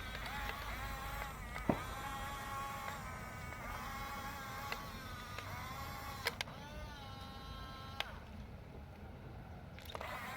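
Small electric motors of a Huina radio-controlled construction toy whining steadily. The pitch dips and recovers several times, with three or four sharp clicks.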